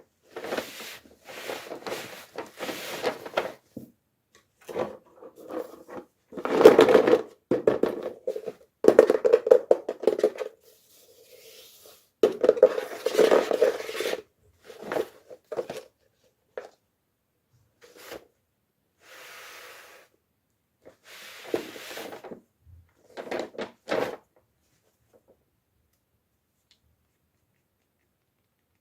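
Hands unboxing small toys: plastic packaging crinkling and tearing, with scrapes, taps and small clicks in irregular bursts.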